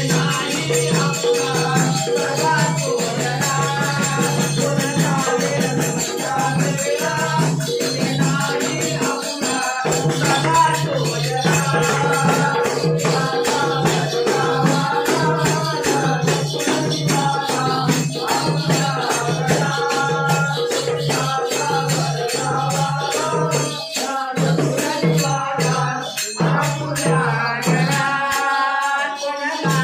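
A Konkani Shimga folk song: several men singing together over a steady beat on a two-headed barrel drum, with hand-clapping and a dense high jingle. The drum drops out briefly near the end while the singing goes on.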